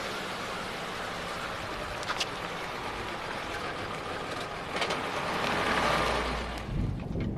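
Old saloon car's engine running as the car drives off, the sound swelling about five seconds in, with a deeper low rumble near the end.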